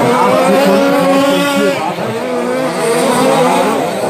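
Several radio-controlled short course trucks racing, their motors whining and rising and falling in pitch as they speed up and slow down.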